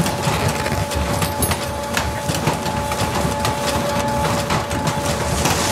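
Photocopier running, scanning and feeding out printed sheets: a steady mechanical hum under a fast clatter of small clicks.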